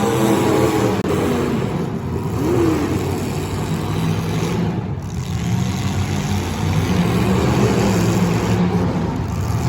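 Demolition derby car engines running and revving, their pitch rising and falling.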